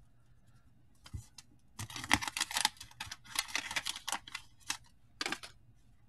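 Cardboard baseball cards being gathered and squared into one stack by hand: a run of short rustles and light clicks of card against card.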